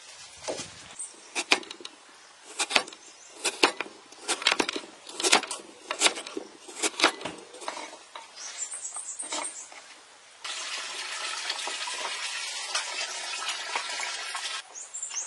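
Kitchen knife cutting green papaya into chunks on a wooden cutting board: a run of sharp, irregular chops and knocks. Later comes a steady hiss of about four seconds that starts and stops suddenly.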